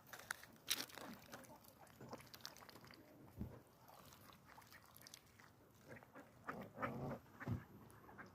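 Ducks close by, heard as faint scattered clicks and crunches, with a cluster of soft, louder animal sounds near the end.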